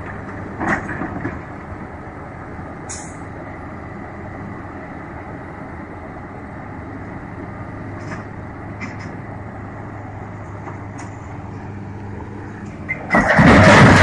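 A heavy diesel engine running steadily at idle, with a few faint knocks. About thirteen seconds in, a loud crash and clatter as a Komatsu PC200 crawler excavator tips over sideways off a lowboy trailer.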